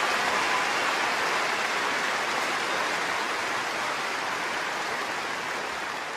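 Large stadium crowd applauding, a dense, even clatter of clapping that slowly dies down toward the end.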